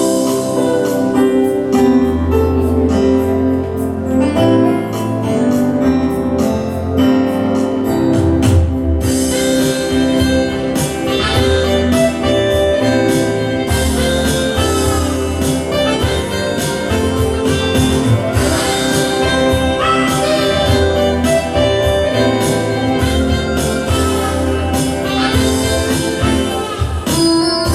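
Music with a bass line and a steady beat, playing throughout.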